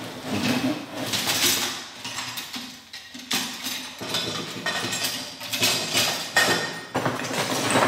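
Aluminium TV antenna elements clinking and rattling as they are pulled out of a cardboard box, with cardboard scraping and plastic bags crinkling. The handling noise comes as a run of irregular clicks and rustles.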